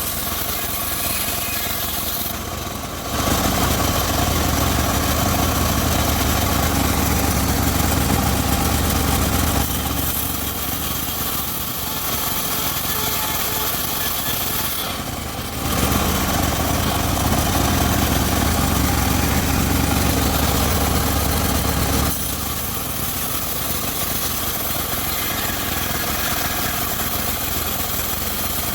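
Homemade engine-driven circular sawmill running while sawing teak. It runs steadily throughout and grows louder and heavier in two stretches of about six or seven seconds each, one starting about three seconds in and the other about halfway through.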